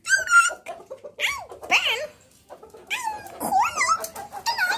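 Several short, high whining and whimpering animal calls that glide up and down in pitch, with a pause of about a second in the middle.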